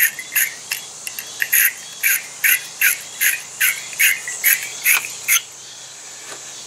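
Battery terminal cleaner brush being twisted back and forth inside a battery cable clamp, wire bristles scraping the lead in regular rasping strokes about two or three a second. The strokes stop about five seconds in.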